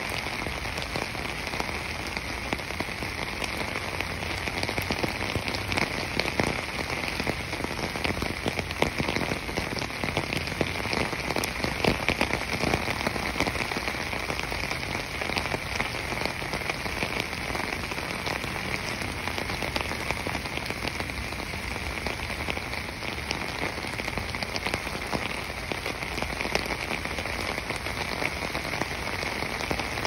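Steady patter of falling water: a continuous hiss dense with small drop-like ticks, with a steady high band of sound above it.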